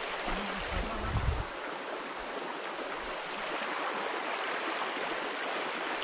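Shallow stream flowing over gravel: a steady rushing of water, with a brief low rumble about a second in.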